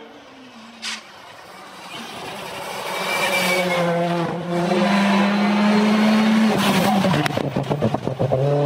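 Rally car engine, faint at first, then approaching at full throttle with its note climbing and holding high. It then lifts off, the pitch dropping under a rapid crackle of pops, before it accelerates again near the end.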